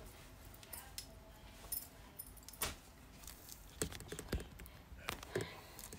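Faint rustling and scattered small clicks as a garment is pulled off and handled, with a few sharper ticks about two to four and a half seconds in.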